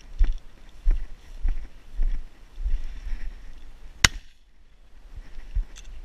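Footsteps crunching through dry grass and scrub, about two steps a second. About four seconds in comes a single sharp shotgun shot at a flushed quail, and the sound then drops away for about a second before the steps resume.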